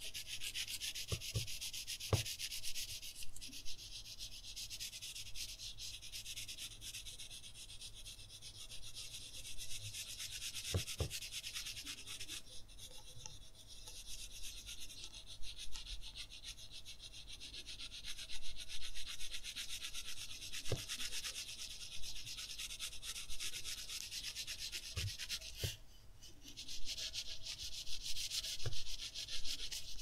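Staedtler Mars Lumograph graphite pencil shading on paper: a steady scratchy hiss of rapid short strokes, lighter for a while in the middle and breaking off briefly near the end. A few faint knocks of the pencil or hand on the drawing surface.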